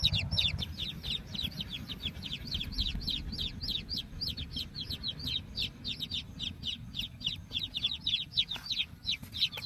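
Young chicks peeping without pause: a rapid string of high, falling peeps, several a second.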